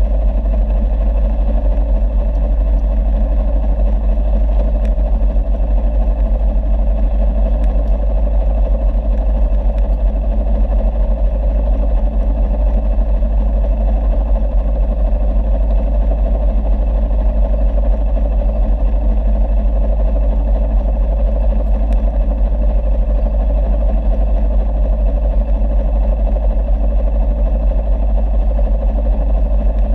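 Boat engine running steadily, a continuous drone with a strong low rumble.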